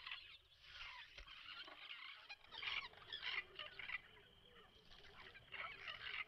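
Faint, irregular chattering calls of babblers in a tree, coming in short bouts.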